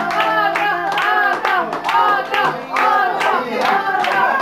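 A small group of people clapping, with several voices calling out over the claps: applause for a guitar song that has just ended.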